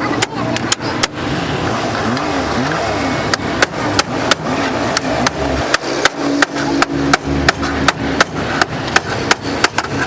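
Hammer striking car-body sheet metal during rust repair of an A-pillar: a run of sharp, irregular blows, at times three or four a second, over a steady low hum.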